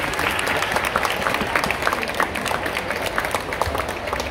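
Crowd applauding: many people clapping at once, a dense patter of hand claps.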